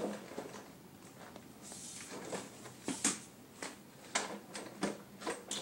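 A small box being handled: scattered light clicks and knocks, with a brief rustle about two seconds in.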